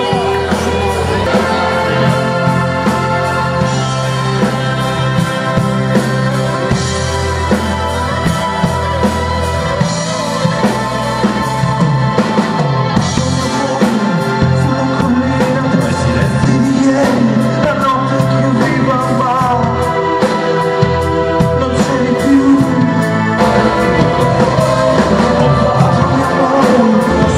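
Rock song with a singing voice, electric guitar, bass and drums, played at a steady beat.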